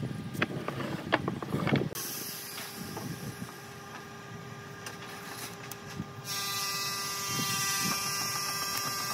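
Wooden boards knocking against each other and the wooden workbench as they are set down and shifted, for about the first two seconds. After that, a steady mechanical hum runs, growing louder about six seconds in.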